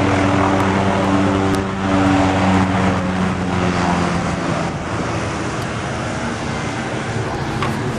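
A propeller aircraft's piston engine running steadily at low power with a low droning hum, easing slightly about halfway through.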